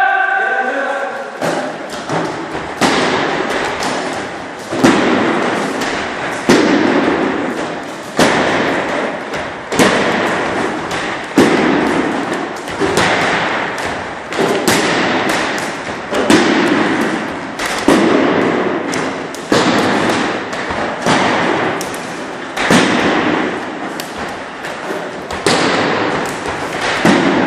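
Wooden training sticks striking a tyre-stack dummy and padded bags: repeated heavy thuds about every second and a half, with lighter knocks between them. Each hit echoes in a large hall.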